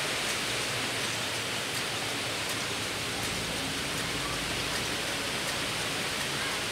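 Steady wet hissing of hands and a sponge rubbing a large clay jar as it spins on a potter's wheel, with faint scattered ticks.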